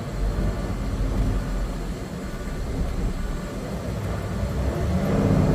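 Semi truck's diesel engine and road rumble heard from inside the cab, a steady low drone that grows a little louder near the end. The truck has lost air pressure and has no acceleration.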